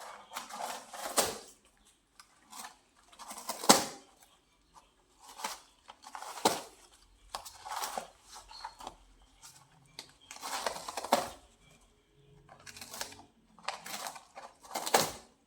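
Kitten biting and chewing on a box: irregular bursts of scraping, crunching and tapping with short pauses between them, the sharpest about four seconds in.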